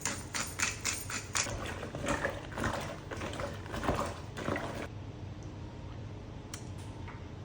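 Cracked pepper being added to the pot: a run of quick, rasping strokes, about four a second, that stops about five seconds in. After that there is only a low, steady background.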